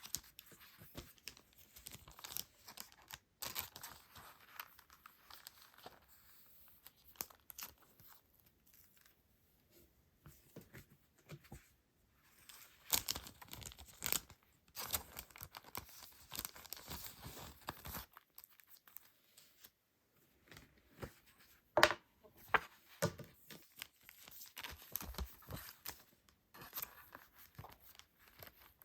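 Packaging being handled at close range: irregular rustling and crinkling, with a few sharper tearing bursts.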